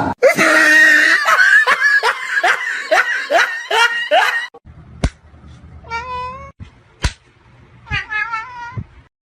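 Cat meowing over and over, loud short calls about two a second; after a break, two fainter, wavering meows with a couple of sharp clicks between them.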